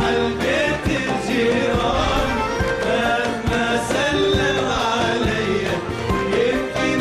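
A man singing an Arabic song in an ornamented, wavering line over instrumental accompaniment with repeated drum strikes.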